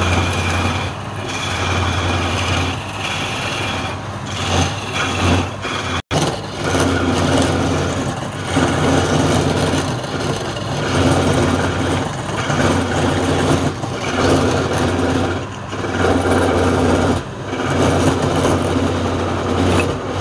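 Wood lathe running with a steady motor hum while a hand-held flat chisel cuts the spinning wood, the rough cutting noise swelling and fading with each pass of the tool. The sound breaks off for an instant about six seconds in.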